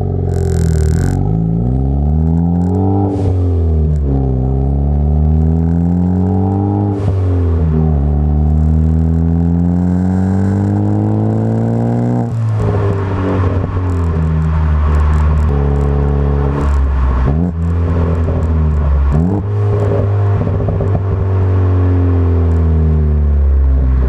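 Ford Focus ST's turbocharged four-cylinder heard at the tailpipes through an MBRP cat-back exhaust under hard acceleration: the revs climb and drop back at upshifts about three and seven seconds in, then climb again. About halfway through it changes to medium acceleration, with the revs rising and falling more gently through several shorter pulls.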